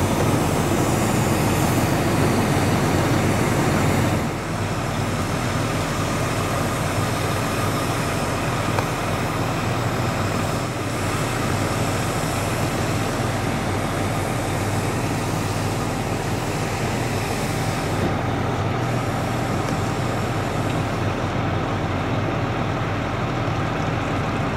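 Fire engine's diesel engine running steadily while driving its water pump, a constant low drone.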